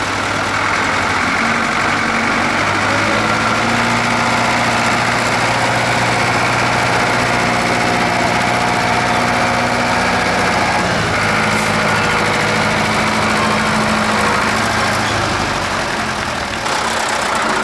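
Old tractor's engine running steadily as the tractor works through deep mud, its note changing about eleven seconds in.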